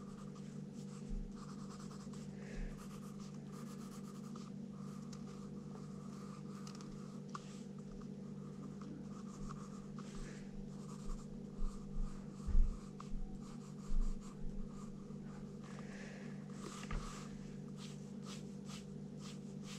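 Graphite pencil scratching across paper in short shading strokes, with a few dull thumps on the table, the loudest about halfway through, over a steady low hum.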